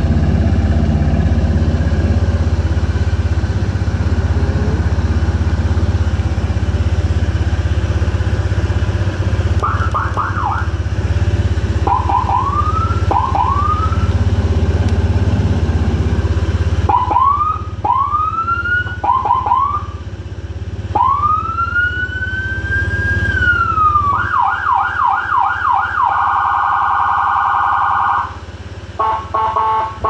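An aftermarket 100 W electronic siren (a local Whelen Epsilon copy driving a YD100i speaker) on a motor scooter, switched through its tones. It gives short rising chirps, then a long wail that climbs and falls, fast yelps, a steady high tone held for about two seconds, and a rapid warble near the end. The scooter's engine idles under the first half and stops about halfway through.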